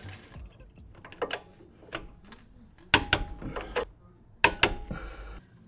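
Hand tools and brake hardware clicking and clinking as a brake caliper and brake line are fitted: a few sharp separate clicks, two of them close pairs, about three and four and a half seconds in.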